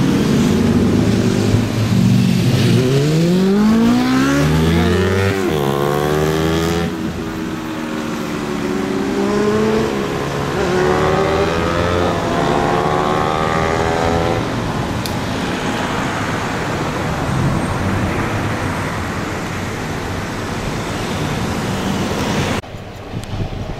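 Polish electric train running, with a motor whine that glides up and down in pitch twice over a steady rumble. The sound cuts down abruptly near the end.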